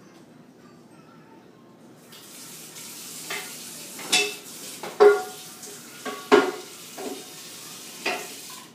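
Running water, a steady rush that starts about two seconds in and stops abruptly near the end, with about seven sharp clinks of dishes and utensils knocking together over it.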